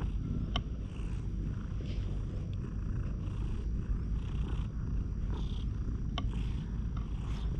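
Brown tabby cat purring steadily, close to the microphone, while a hand strokes its fur, with soft rustles of the strokes on top.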